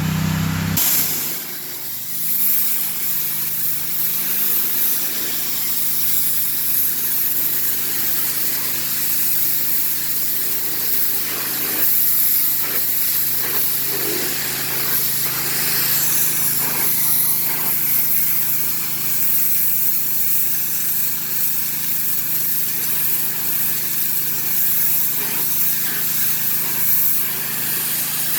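Pressure washer running: a steady engine hum under the loud hiss of a water spray.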